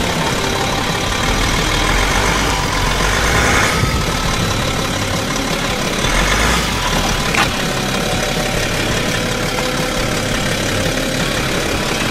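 A BMW's engine idling steadily as the car creeps slowly forward onto a soccer ball.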